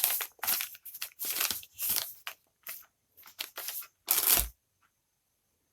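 Plastic packaging crinkling and rustling in short bursts as ceiling fan parts are handled, with a louder rustle and a low thud about four seconds in, then quiet.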